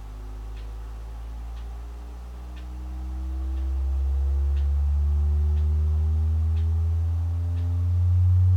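JVC RV-NB70 boombox playing a slow rising sine-wave test sweep: a low bass tone climbing steadily in pitch and growing louder as it rises, showing that the set's output increases with frequency at the low end. A faint tick sounds about once a second.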